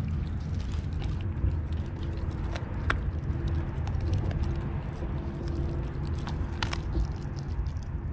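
A Lycan Shepherd puppy chews a whole raw tilapia, with wet chewing and sharp crunches as its teeth break through the fish and its bones. The loudest cracks come about three seconds in and again near seven seconds.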